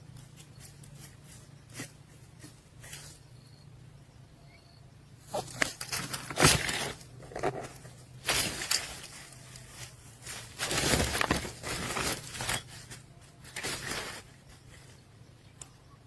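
Nestlings scuffling and rustling in the nest: irregular clusters of scratchy, noisy bursts through the middle of the stretch, over a steady low hum.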